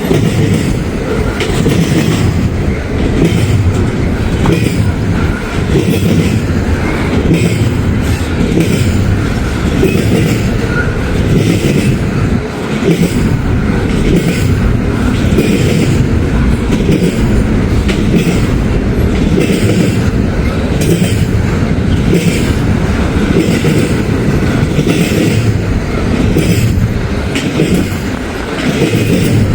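Norfolk Southern freight cars rolling past close by, wheels clicking in a steady repeating rhythm over the rail. Strong wind buffets the microphone.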